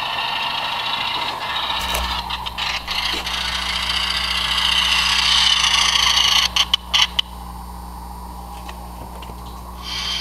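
HO-scale model train running on the layout's track close to the microphone: a whirring, grinding run that grows louder for about six seconds. Then a few sharp knocks, and a quieter low steady hum.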